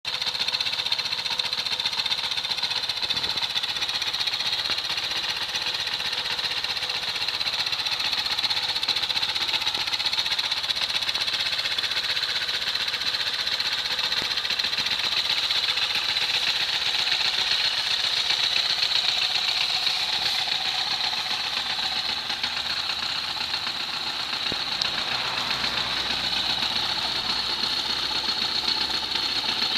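A 150 cc quad bike's engine running steadily at idle, with no revving.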